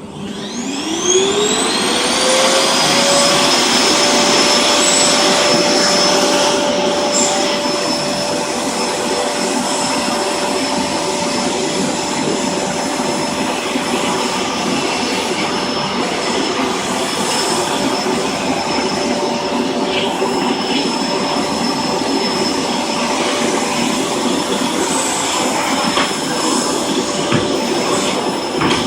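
Vacuum cleaner switched on: its motor whine rises over the first two seconds, then runs steadily.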